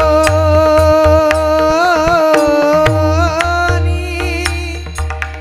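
Marathi kirtan singing: a long, held, ornamented sung note, wavering about two seconds in, over repeated low drum strokes and sharp cymbal clicks.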